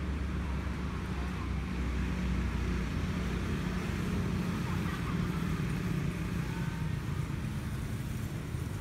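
Steady low rumble of a motor running.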